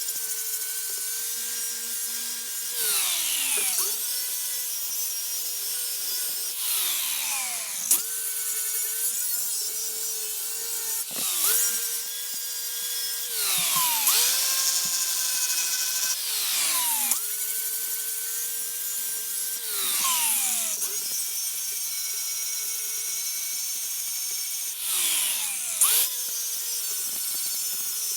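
Small high-speed electric rotary tool run in repeated short bursts, about one every three seconds. Each burst spins up to a steady whine and then winds down with a falling pitch when switched off, with a rasping, grinding hiss of the tool working the piece.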